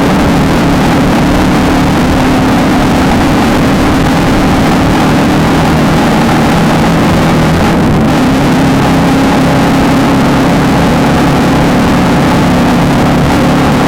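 A VW Beetle desert race car's engine running hard at a steady pitch, with a constant rushing noise over it.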